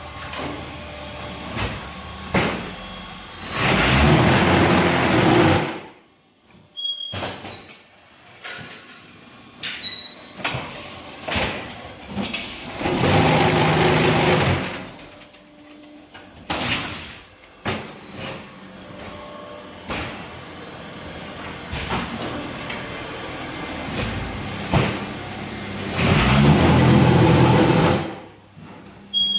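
Concrete block-making machine working through its cycle: three loud spells of mold vibration compacting the concrete mix, each about two seconds long and some ten seconds apart, each stopping abruptly, with clanks and knocks of the machine's moving parts in between.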